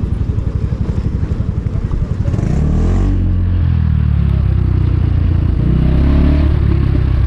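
Small motorbike engine running at low revs with a regular pulse, then accelerating about two and a half seconds in and holding a steadier, higher note that rises and falls slightly.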